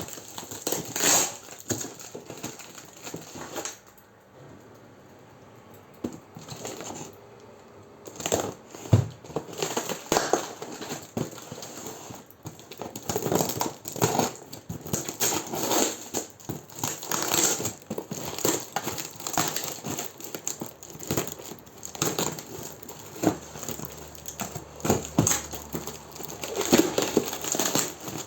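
A parcel's packaging being torn open and handled: irregular crinkling and rustling with short knocks, easing off briefly about four seconds in.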